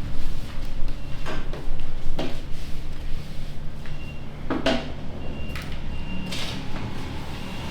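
A few sharp clicks or clatters, about one every second or two, over a steady low hum.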